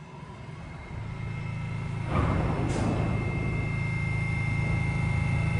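R68 subway train standing at the platform: a steady low rumble of its running equipment that builds over the first two seconds, with a thin high whine over it and a brief hiss of air about two seconds in.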